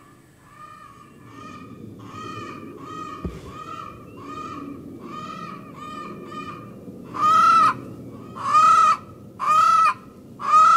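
A hen squawking in a long run of drawn-out calls: about two a second at first, then much louder and about a second apart from roughly seven seconds in. She is upset because her favourite nesting box is occupied.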